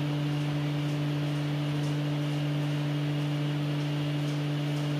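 A steady low hum of two held tones, unchanging, with no knocks or clicks over it.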